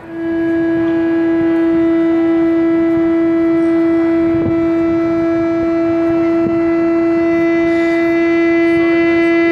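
A shofar sounded in one long, loud blast, held at a single steady pitch without a break.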